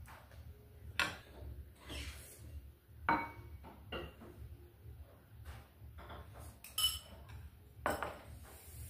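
Chopsticks and ceramic bowls clinking at a meal: a handful of separate sharp clinks, one ringing briefly, over a low steady hum.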